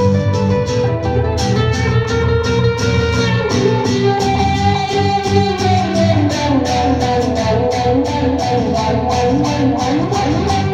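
Live band playing an instrumental passage: guitar over a bass line, with a steady beat of about three strokes a second.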